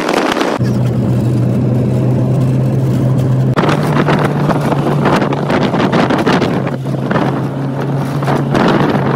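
Moving car, heard from a phone filming out of its window: wind rushing and buffeting on the microphone over a steady low engine and road hum, whose pitch steps up about half a second in and again a few seconds in.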